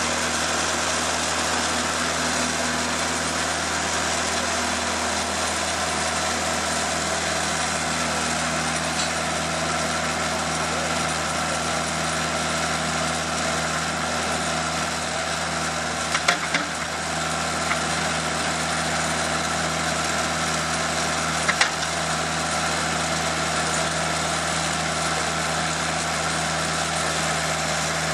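TimberKing 2000 portable band sawmill's engine running steadily, with a few brief knocks about two-thirds of the way through.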